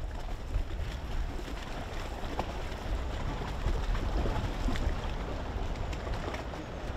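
Wind buffeting the microphone: a steady, gusting low rumble with a hiss over it and scattered faint clicks.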